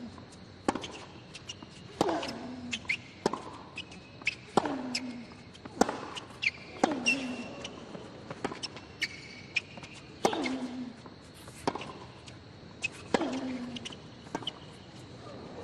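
Tennis rally on a hard court: the ball is struck back and forth about every 1.3 seconds, each racket hit a sharp crack, with one player giving a short grunt that falls in pitch on each of his shots. Short high squeaks, likely shoes on the court, come between some of the hits.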